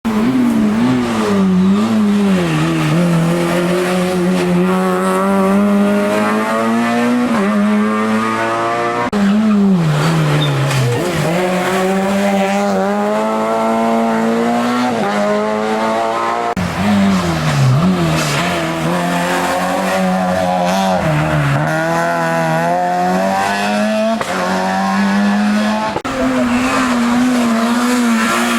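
Hill-climb racing car's engine under hard acceleration, its pitch rising through each gear and dropping at every shift. Twice, about a third of the way in and again past halfway, the pitch falls further as the car brakes and downshifts for a bend, then climbs again.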